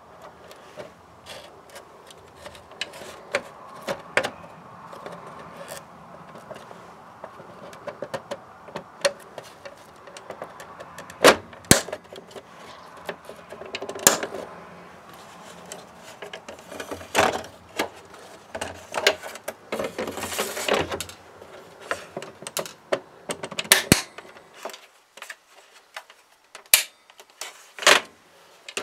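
Hard plastic clicks, snaps and knocks as the plastic front housing and clear lens of a GM truck instrument cluster are handled and pressed into place over its back housing, the clips catching. The clicks come irregularly, several sharp snaps stand out in the second half, and there is a brief scraping rustle about two-thirds through.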